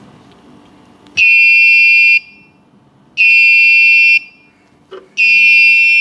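Buzzer of a home-made Arduino anti-theft alarm beeping: a high beep about a second long, repeating every two seconds, three times. The alarm has been set off, as happens when something comes within range of its ultrasonic sensor, and keeps beeping until reset.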